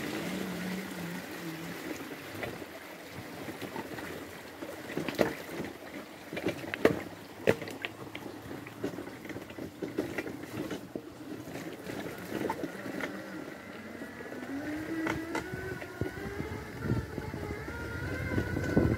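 Magic Mobility Extreme X8 power wheelchair's electric drive motors whining as it drives over a rough, stony gravel track, with the wheels and frame knocking and clattering over stones. The motor whine rises in pitch a few seconds before the end as the chair speeds up.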